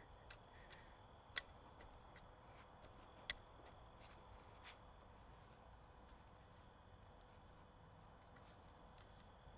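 Faint crickets chirping in a steady, even rhythm, with two short sharp clicks about one and a half and three seconds in.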